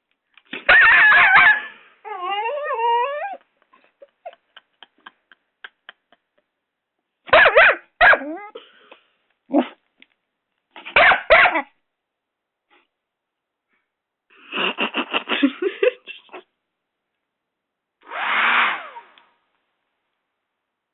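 Six-month-old Doberman puppy barking, yipping and whining in separate bursts, with a run of rapid growling pulses past the middle. This is a puppy play-attacking a hairdryer.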